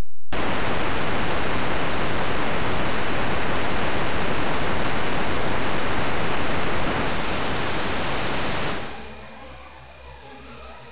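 Sound output of SketchSynth, an image-to-sound synthesizer, playing a drawn score: a loud, even wash of noise like static. The highest part drops away about seven seconds in, and about two seconds later it falls much quieter, leaving a faint noisy texture with a few thin tones.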